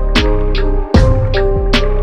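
Background music with a steady beat of sharp drum hits over held instrumental tones.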